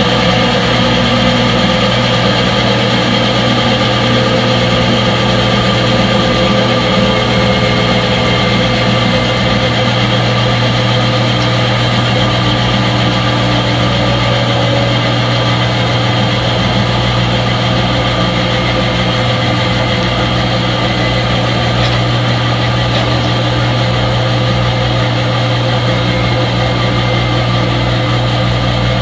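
Front-load washing machine in its spin cycle: a steady, unchanging motor whir with a strong low hum.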